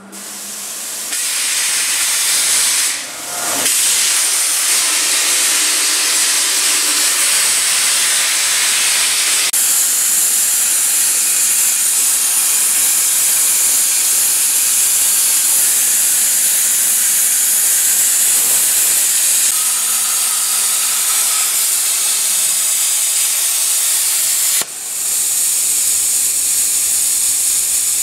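CNC plasma cutting torch hissing steadily as its arc cuts through steel plate, briefly dipping about three seconds in and again near the end.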